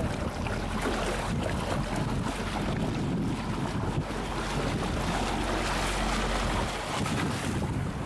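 Water rushing and splashing along the side of a moving boat, with wind buffeting the microphone and a low steady rumble of the boat's motor underneath.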